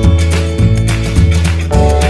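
Background music: strummed guitar chords over a steady bass line.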